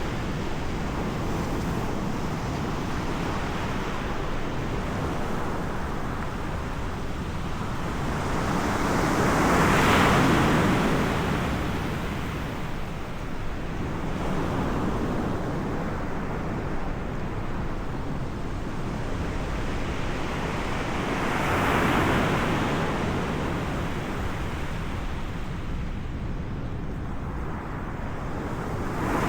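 Ocean surf with wind buffeting the microphone: a steady wash of noise, with two larger waves swelling and falling away about ten and twenty-two seconds in.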